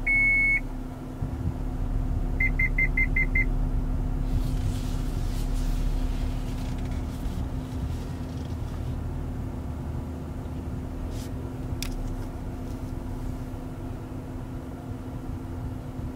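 MG Hector's parking-assist beeps in the cabin: one longer beep as the 360-degree camera view comes on, then a quick run of six short beeps about two seconds later. Under them runs the car's steady low hum, with a single click near the end.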